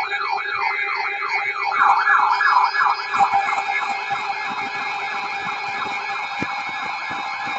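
Electronic siren warbling up and down rapidly, about four times a second, over a steady low tone. The warble is loudest two to three seconds in, then the sweeps blur together, and the low tone cuts off near the end.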